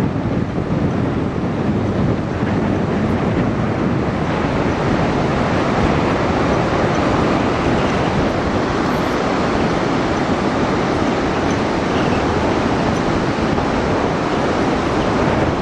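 Blustery wind buffeting the microphone over the steady rush of surf breaking on the shore.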